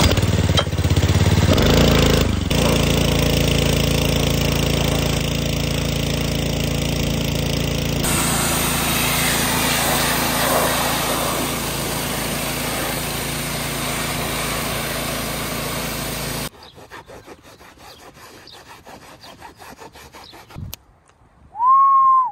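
A small motor running steadily with a hiss, its sound changing abruptly about two and a half and eight seconds in, then stopping about sixteen seconds in. Faint noise follows, and a short rising-and-falling chirp comes near the end.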